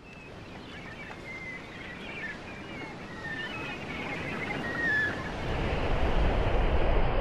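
Ocean-and-wind sound effect for a logo intro: a steady wash of water and wind noise with a few short, high chirps over the first few seconds. It swells into a louder, deep rumble from about five seconds in.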